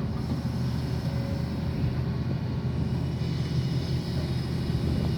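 Heavy diesel engine running steadily at an even speed, with a low, constant hum.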